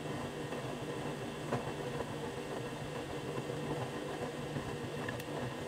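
Front-loading washing machine running mid-wash: a steady motor hum as the drum turns the laundry through heavy suds, with a couple of faint clicks.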